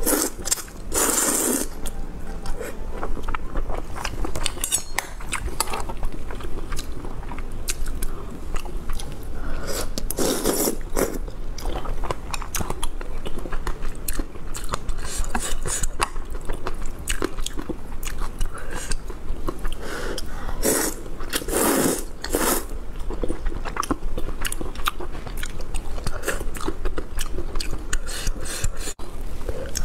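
Close-miked eating of noodle soup: wet chewing and mouth noises throughout, with several loud slurps of noodles, about a second in, around ten seconds in, and again twice around twenty seconds in.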